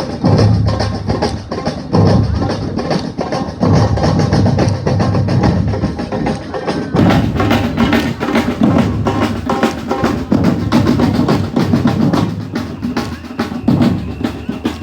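Drum band playing a driving batucada-style rhythm on bass drums and snare drums, with heavy accented low beats. The sound grows brighter about seven seconds in.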